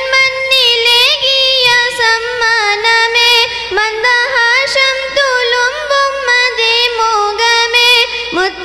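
A girl singing a naat, an Islamic devotional song, in Malayalam as a single voice into a microphone, with gliding, ornamented runs and held notes.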